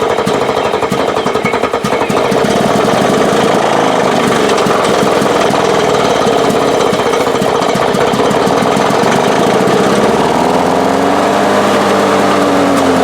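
Lawn Boy mower engine running steadily after a new ignition coil has restored its spark. About ten seconds in, its note rises in pitch.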